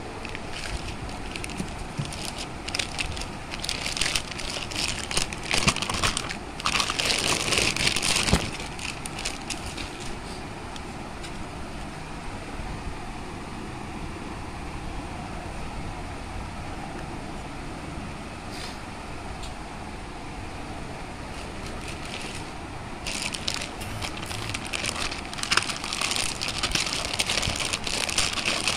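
Plastic packaging bags and a cardboard box being handled while a juicer mixer grinder is unpacked: crackling and crinkling in busy bouts for the first several seconds and again near the end. In between is a quieter stretch of steady hiss.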